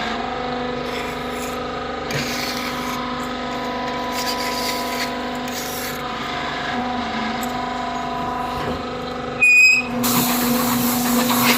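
A brick-making press machine running with a steady mechanical hum. About nine and a half seconds in comes a brief, loud high-pitched tone, followed by a hiss for the last couple of seconds.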